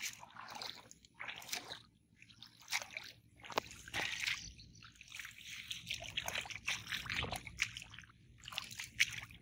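A wet cast net being hauled out of shallow water onto a mud bank: water trickling and splashing off the mesh, with irregular sloshes and squelches of mud.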